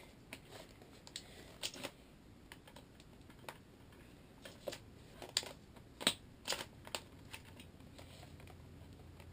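Irregular light clicks and knocks of hands working a spring bolt-action airsoft sniper rifle, about ten in all, the sharpest about six seconds in.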